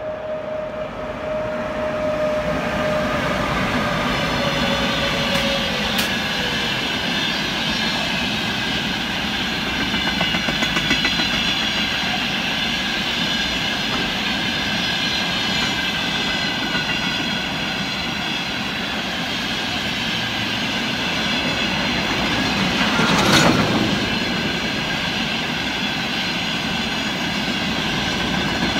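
Long freight train of oil tank wagons rolling slowly past: wheels clattering over the rail joints with a steady high-pitched squeal from the wheels. A tone slides down and fades in the first six seconds as the electric locomotive moves off. A single loud clank comes about 23 seconds in.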